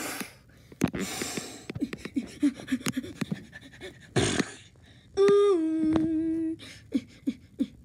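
A person's voice imitating comic-book sound effects: a breathy whoosh about a second in, a short noisy puff after about four seconds, then a sung two-note "ding-dong" doorbell, a higher note falling to a lower one held for over a second.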